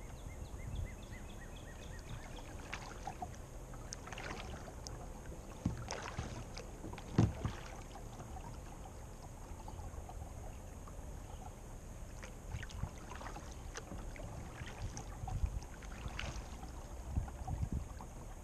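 Kayak paddle strokes in calm creek water: irregular splashes and drips with water lapping at the plastic hull. One sharper knock stands out about seven seconds in.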